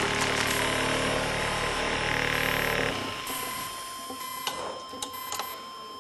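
Buzz saw running with a steady hum and grinding noise, cutting off about halfway through. A single steady high beep tone then carries on, with a few knocks as the saw is lifted clear.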